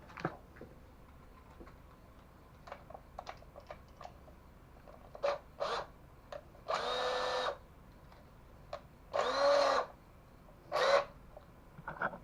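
Power drill run in several short bursts, its motor whining at a steady pitch. There are two quick blips, then runs of under a second each, with light clicks of tools and parts being handled before them.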